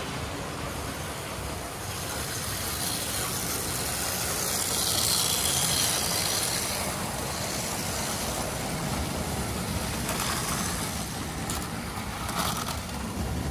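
Three-rail O-gauge model trains running on the layout: a steady rolling noise of wheels on metal track that grows loudest about five seconds in, as a passenger train runs close by. A few light knocks come near the end.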